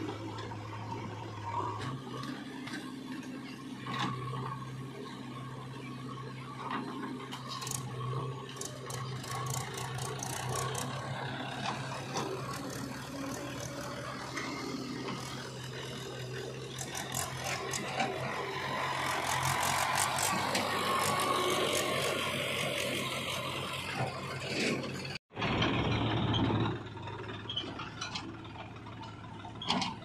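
Diesel engines of a JCB 3DX backhoe loader and a farm tractor running steadily, with metallic rattling, clanking and scraping from the loader working soil into a tractor trolley. The engine drone steps up in pitch about two seconds in, and the rattling and noise grow louder past the middle before a brief break near the end.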